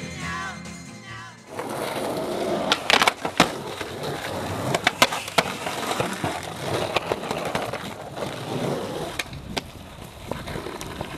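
Skateboard wheels rolling over rough concrete, with sharp clacks and knocks of the board several times, the loudest about three and five seconds in. A song with singing fades out in about the first second and a half.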